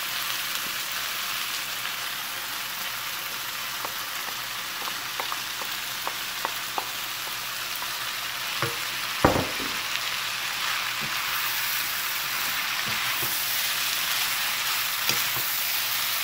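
Chicken, vegetables and noodles sizzling in a hot frying pan while a wooden spatula tosses them, with light clicks of the spatula against the pan and one sharper knock about nine seconds in.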